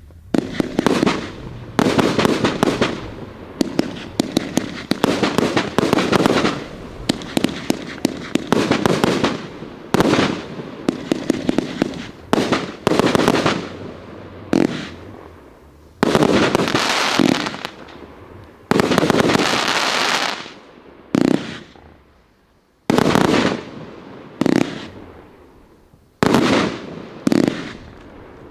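Riakeo Peking Opera 3 firework going off volley after volley, about one blast every second or two, each followed by a fading spray of crackles, with a brief lull about two-thirds through.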